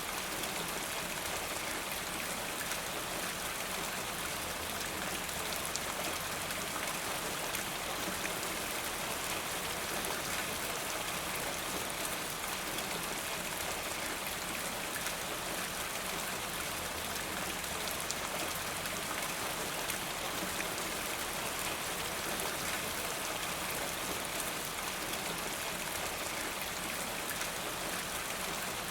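Steady rain falling in a forest, an even hiss with many fine scattered drop patters.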